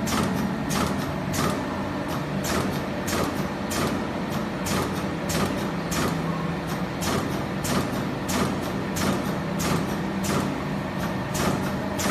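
Membrane-switch hole punching machine running with a steady low hum and short sharp strokes repeating unevenly, about twice a second.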